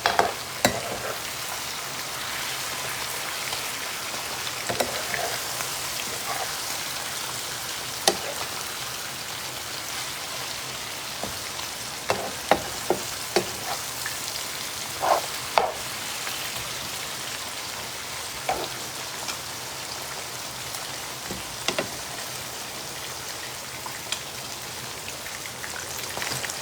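Fish, potatoes and onions frying in hot oil: a steady sizzle with scattered sharp pops and clicks throughout.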